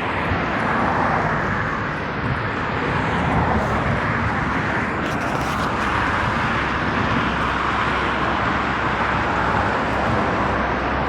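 Steady road traffic noise, gently swelling and easing as vehicles go by.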